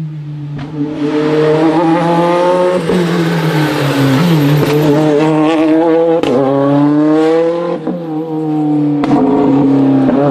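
Toyota Yaris WRC rally car's 1.6-litre turbocharged four-cylinder engine revving hard, its pitch climbing again and again with sharp breaks at each gear change or lift, as the car is driven flat out through a series of corners.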